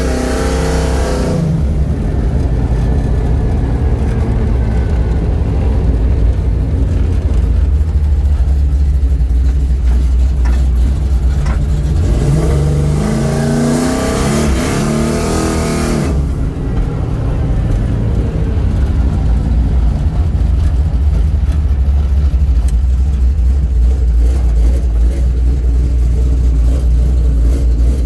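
A 1964 Chevrolet Chevelle Malibu SS's 400 small-block V8, with long-tube headers into a straight exhaust, heard from inside the cabin while driving. It gives a steady low rumble, and the engine revs up under acceleration twice: briefly at the start, and again for a few seconds about halfway through.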